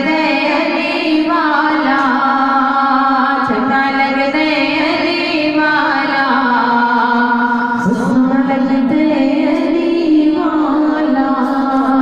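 A devotional qasida sung by a solo voice over music, in long held notes that slide up into each new phrase.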